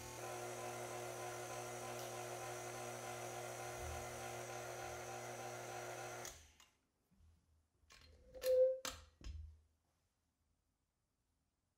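Stand mixer's motor running with a steady hum as its wire whisk beats thick macaron batter in a glass bowl, cut off suddenly about six seconds in. A few clicks and knocks follow as the mixer head is tilted up.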